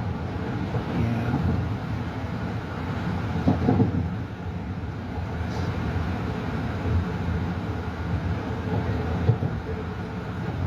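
Metro-North M3A electric multiple-unit train in motion, heard from inside the car: a steady low rumble of wheels on rail, with a few louder clunks about three and a half seconds in and another near the end.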